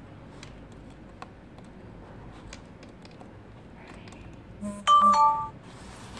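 Faint clicks and taps of pliers against the plastic housing of a car stereo head unit being pried apart. About five seconds in comes a short, loud chime of two steady tones, the second lower than the first.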